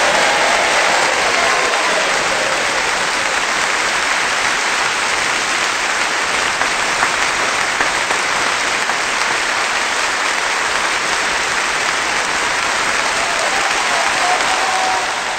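Large audience applauding: a steady, dense clatter of many hands clapping.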